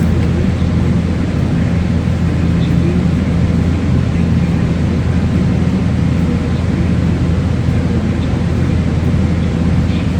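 Steady low droning hum, like a motor or fan running, unchanging throughout.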